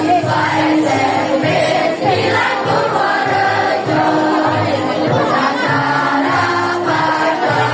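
A school choir of young students singing together over an accompaniment with a steady beat.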